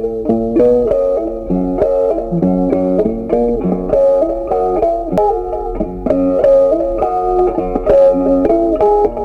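Background music: a melody of quick plucked guitar notes over a bass line.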